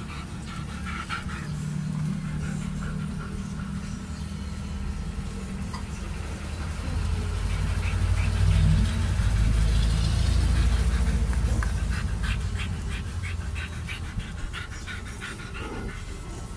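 Three-week-old Belgian Malinois puppies making small squeaks and whines as they play. Under them runs a low rumble that swells about halfway through and then fades.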